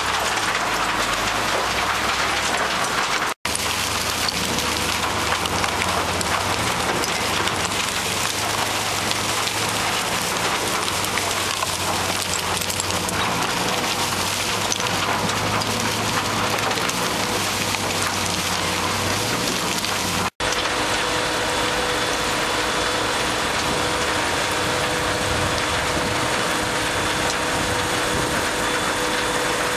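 Waste-processing machinery running: a dense, continuous rattle and rush of shredded waste tumbling off a conveyor belt onto a pile, over the machine's steady hum. The sound cuts out abruptly twice, about 3 s and 20 s in.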